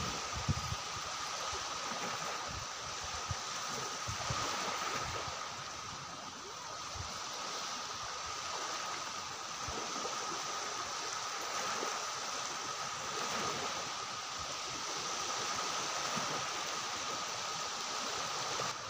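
Steady rushing of water, with a continuous high tone over it and a few low thumps near the start.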